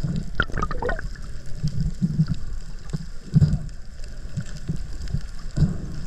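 Underwater sound picked up by a camera just below the sea surface: water sloshing and gurgling, with repeated low muffled thumps. A few short squeaks that glide up and down come about half a second in.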